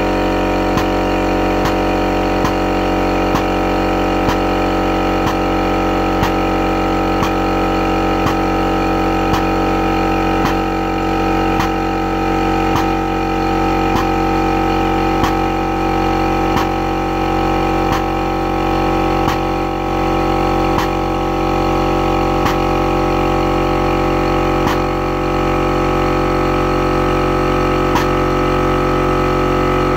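Wallmek air-driven hydraulic pump running steadily, a hum of several steady tones with a regular click from each stroke, a little more than once a second, as it builds hydraulic pressure.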